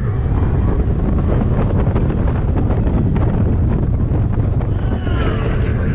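Wind rushing over the microphone on a moving Slinky Dog Dash roller coaster train, over the steady rumble of the train on its track. A few short, high wavering cries come in about five seconds in.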